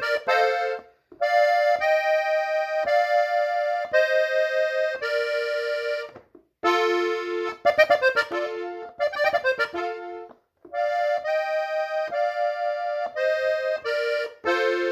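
Hohner diatonic button accordion in F playing a melody phrase. Most notes sound two at a time, in quick ornamental runs and held notes, and the playing breaks off briefly three times.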